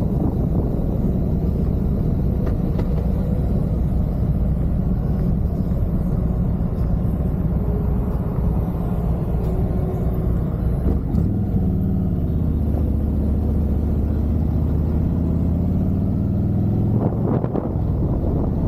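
Harley-Davidson Road Glide Limited's V-twin engine: running with wind noise as the bike slows, idling steadily at a stop about halfway through, then rising in pitch as it pulls away near the end.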